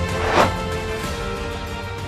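Background music, growing gradually quieter, with one short swoosh-like burst of noise about half a second in.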